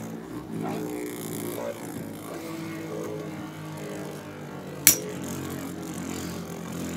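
A Valtryek and a Spriggan Beyblade Burst top spinning in a clear plastic stadium, giving a steady whirring hum. About five seconds in there is one sharp clack as the tops strike each other.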